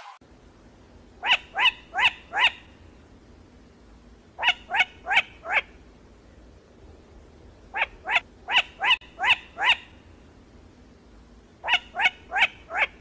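Grey crowned crane calling in four bouts of four to six short, slightly falling notes, about three notes a second, with pauses of about two seconds between bouts.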